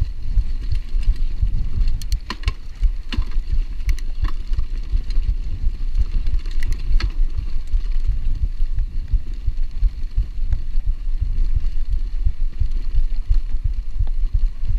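Heavy, irregular low rumble and thumping from a handlebar-mounted action camera as the mountain bike rolls over bumpy grass track, with wind on the microphone. A few sharp clicks and rattles from the bike come in short clusters in the first half.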